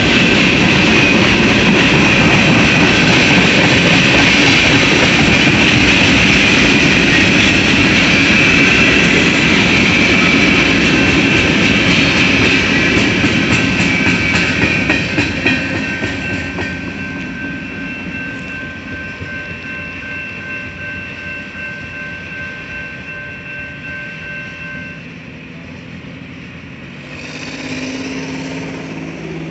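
Freight cars of a CSX mixed freight train rolling past on jointed track, with wheel-and-rail clatter and thin steady ringing from the wheels. It is loud for the first half and fades off about 15 seconds in. A low steady engine hum comes in near the end.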